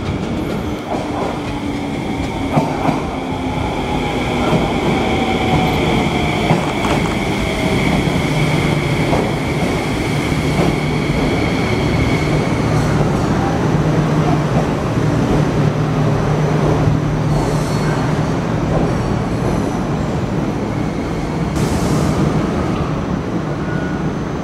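Enshu Railway 2000-series electric train pulling into the station, with a steady high squeal of wheels or brakes through the first half and a whine falling in pitch as it slows. A steady low hum follows, with a short hiss near the end.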